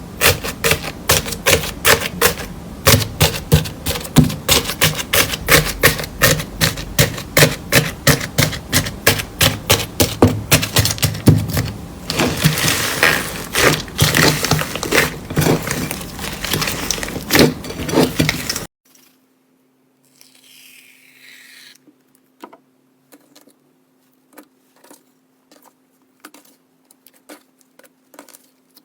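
Slime being squeezed and pressed by hand, making rapid sticky clicking and popping, several clicks a second. About two-thirds of the way in it cuts abruptly to much quieter, scattered clicks and pops over a faint steady hum.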